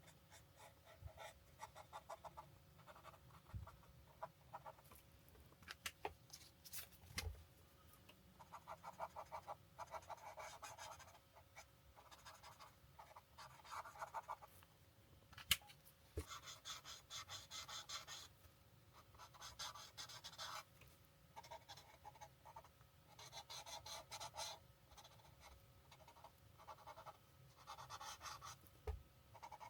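Alcohol marker tips scratching across paper in quick back-and-forth colouring strokes, in short runs of a second or two with pauses between. A single sharp click about fifteen seconds in.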